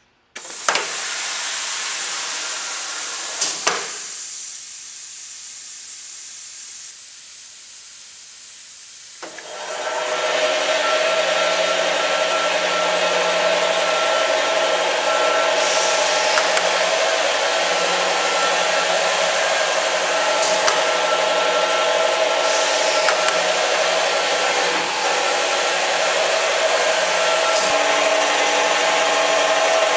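Pistorius MNV-22-1/2 12-inch double miter saw powering up. A loud rushing hiss starts suddenly and eases after a few seconds. About nine seconds in, the saw starts running steadily with a constant hum, with a few brief clicks over it.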